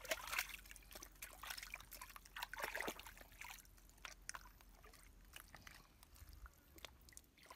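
Shallow muddy water sloshing and trickling in short, irregular spurts, with small clicks.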